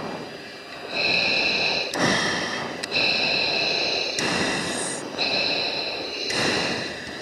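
Heavy breathing into an F-16 oxygen mask's microphone over the cockpit intercom, a breath about every two seconds, with steady high-pitched cockpit tones between breaths.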